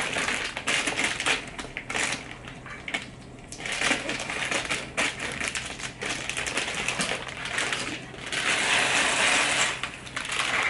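Plastic bag of dry penne pasta crinkling as it is handled and opened, the hard pasta tubes clicking and rattling inside. Near the end a longer continuous rush as the penne is poured from the bag into a pot.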